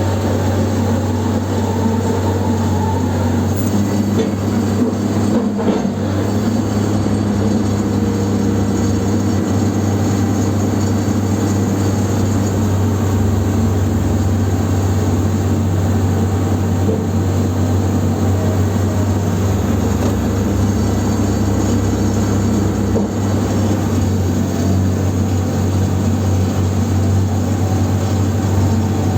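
Large engine of a heavy machine running steadily at a constant speed, a loud low hum with a constant rumble over it.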